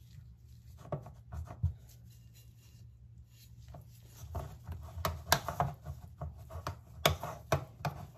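Metal spoon scraping and pressing grated cassava down into a metal cake tin, with scattered clicks of the spoon against the tin, growing busier from about four seconds in.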